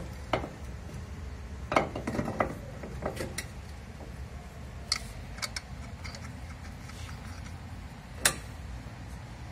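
Irregular metal clinks and knocks from work on the suspension, over a steady low hum. The loudest come about two seconds in and again near the end.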